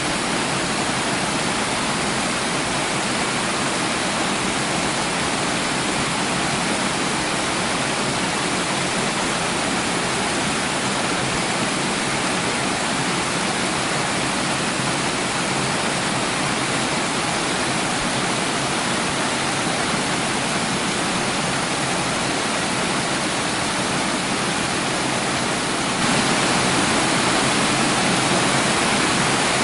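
Water running or falling steadily in a continuous rush, with a slight step up in loudness about 26 seconds in.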